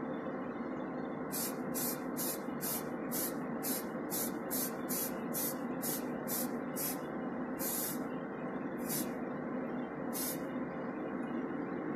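Aerosol can of primer spraying in short, quick puffs, about three a second, starting about a second in, then three longer squirts, the last about ten seconds in. Under it the spray booth's extractor fan hums steadily.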